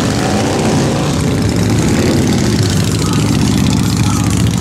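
Several large cruiser and bagger motorcycles riding slowly past, their engines running with a low, steady note.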